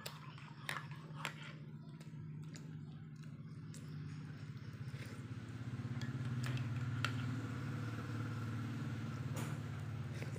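Metal spoon stirring coffee in a ceramic mug, with light clinks against the mug every now and then, over a steady low hum.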